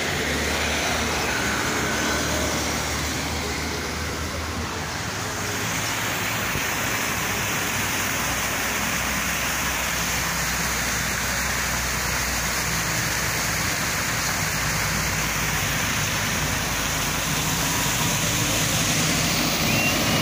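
Road traffic noise at a roundabout: a steady hum of passing vehicle engines and tyres, growing a little louder near the end as a box truck drives past close by.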